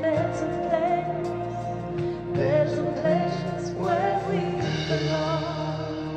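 Live band music, a slow ballad, with a sung vocal line holding wavering notes over sustained chords. The deep bass drops out near the end.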